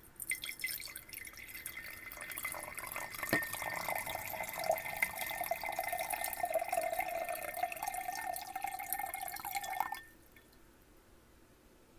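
Water poured into a glass: steady splashing for about ten seconds, with a tone that rises slightly as the glass fills, then stops suddenly.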